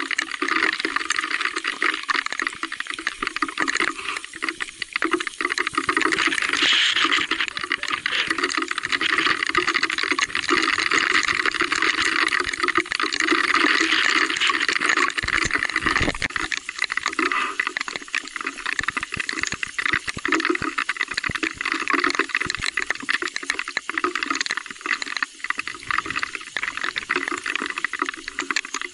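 Heavy rain: a steady hiss full of dense little ticks of drops hitting close by.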